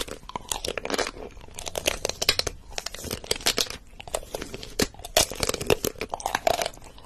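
Crunching and crackling as of biting and chewing something brittle: a dense, irregular run of crunches that goes on throughout, matched to a man biting into a steel tumbler.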